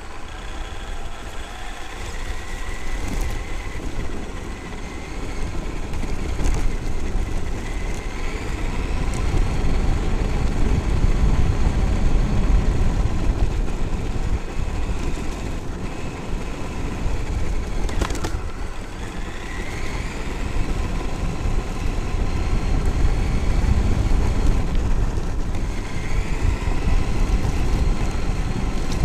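Traxxas X-Maxx electric RC monster truck's brushless motor whining, its pitch rising several times as the truck speeds up. A heavy rumble of wind and tyres on the onboard camera's microphone runs under it.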